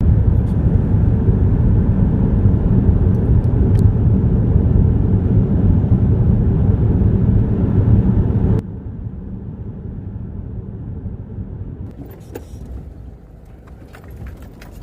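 Car on the move, a steady low road rumble. It cuts off abruptly about eight and a half seconds in, giving way to a quieter rumble with a few faint clicks.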